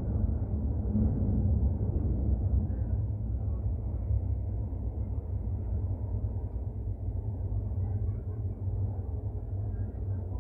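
AS-14 metro train heard from inside the car as it runs along the line: a steady low rumble from the wheels and running gear, growing slightly quieter toward the end.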